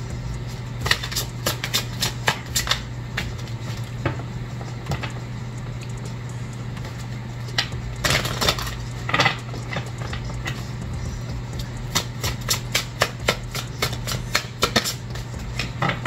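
Oracle cards being shuffled by hand: irregular clicks and slaps of the cards, with a denser stretch of shuffling about eight seconds in and quicker taps near the end, over a steady low hum.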